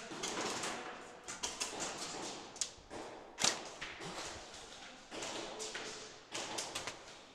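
Close-quarters airsoft skirmish: rapid scattered clicks and knocks over rustling noise, with one sharp crack about three and a half seconds in.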